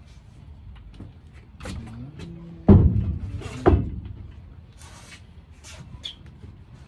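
Two heavy thuds about a second apart as furniture is set down and stacked in the cargo box of a moving truck. A short rustle of moving blankets follows.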